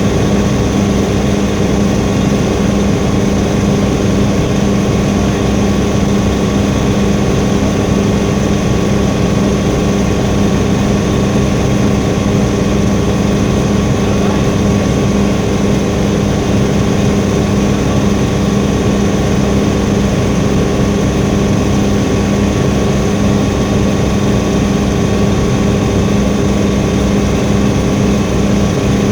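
Helicopter engine and rotor running steadily, a constant loud drone with a fixed hum that does not change in pitch.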